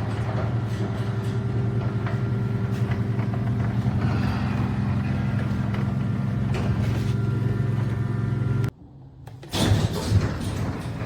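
Steady motor hum with a low pitched drone. It cuts out abruptly for under a second near the end, then comes back with a few sharp knocks.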